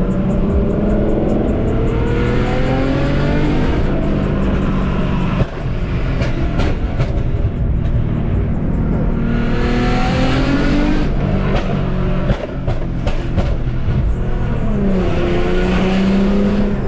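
A 2014 Infiniti Q50 3.7's V6, breathing through long tube headers and a 3-inch aftermarket exhaust, pulls under acceleration. The engine note climbs in pitch several times, with short drops about five and twelve seconds in that fit gear shifts, and near the end the pitch falls and then climbs again.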